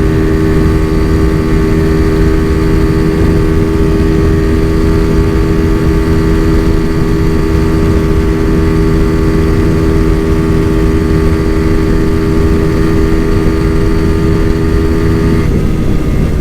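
Single-cylinder engine of a Honda Fan 125 bored out with a 170cc kit, held at steady high revs on a top-speed run where the gearing holds the bike at about 160 km/h, with strong wind buffeting the microphone. Near the end the engine pitch drops a little.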